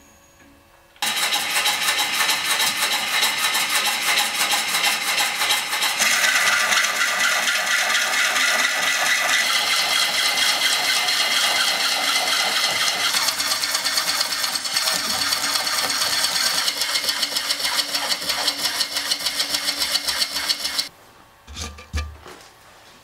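Bowl gouge cutting into a large green elm bowl blank spinning on a wood lathe: a loud, dense hiss of the cut with fast ticking, its tone shifting a few times. It starts about a second in and stops abruptly near the end, followed by a few light knocks.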